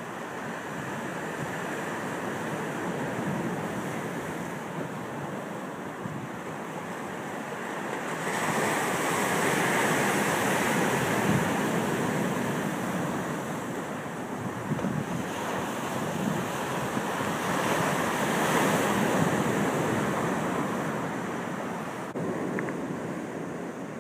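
Ocean surf breaking against a rocky shoreline, a steady wash of water that swells louder twice as waves crash in and then eases off near the end.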